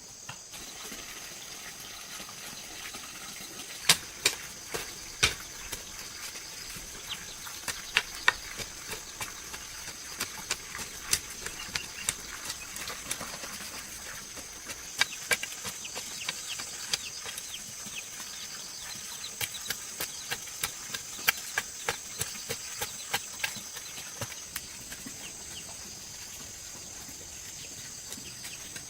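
Steady high-pitched insect chorus, with many irregular sharp clicks and snaps over it.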